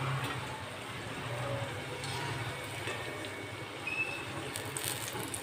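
Besan-battered green chillies sizzling as they deep-fry in hot oil in an iron kadhai. Near the end, a slotted steel spoon clicks and scrapes against the pan as they are turned.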